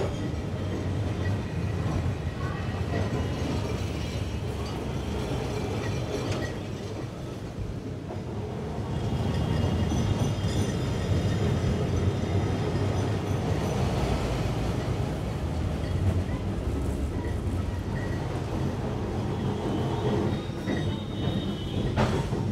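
Kolkata tram running on its rails: a steady low rumble, with faint high-pitched wheel squeal around the middle and again near the end.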